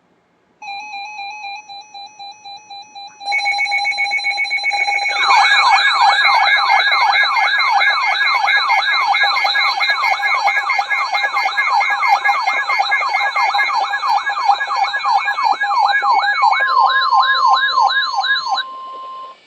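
Several NOAA weather radios sounding their alert alarms together for a severe thunderstorm warning. A pulsing electronic beep starts less than a second in, more radios join with steady alarm tones about three seconds in, and a warbling siren-like sweep, repeating about three times a second, starts about five seconds in. Near the end the others drop out, leaving the broadcast's steady 1050 Hz warning tone, which cuts off suddenly.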